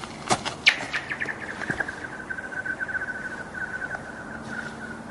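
A rock skipping and sliding across a frozen lake: two sharp impacts on the ice, then a falling chirp and a long string of rapid, high chirps that slowly fade as the ice sheet rings under the rock.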